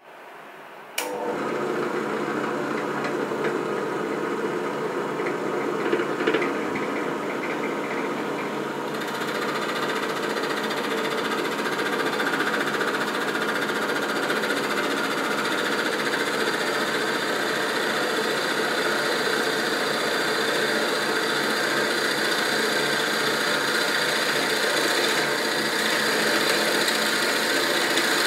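SK11 SDP-300V 300 W benchtop drill press running steadily after a click about a second in. From about nine seconds the twist bit boring into a wooden board adds a rougher cutting noise over the motor's hum.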